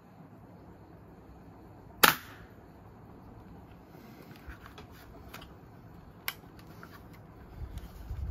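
Manual spring-powered toy BB gun firing a 6 mm BB: one sharp snap about two seconds in, the loudest sound, and a second, quieter snap about six seconds in. Small clicks come between them, and low thumps of the gun being handled come near the end.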